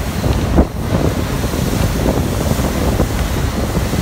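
Wind buffeting a phone's microphone over the rush of water and spray from a motorboat moving at speed, with a short louder burst about half a second in.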